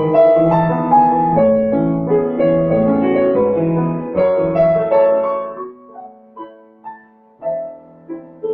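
Piano playing a slow ballad interlude with no voice: sustained chords under a melody for the first half, then thinning out to a few soft, separate notes that ring and fade.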